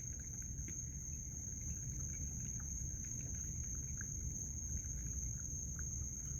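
Steady chorus of night insects, one unbroken high-pitched trill, over a low rumble, with a few faint scattered small clicks.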